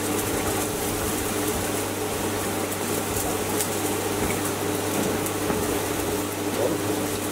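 Water running steadily from a kitchen tap, over a constant low hum.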